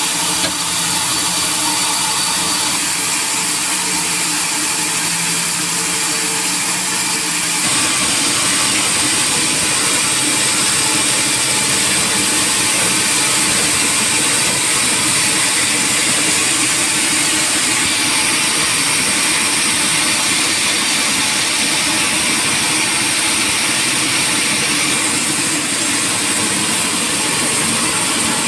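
Sawmill machinery running steadily. About seven and a half seconds in, the sound becomes brighter and a little louder.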